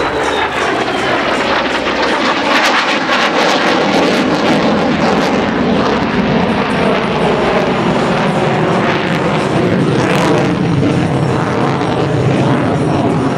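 An F-35A Lightning II's Pratt & Whitney F135 jet engine running at high power as the jet climbs steeply overhead. It is a loud, steady roar with a crackling rasp through it.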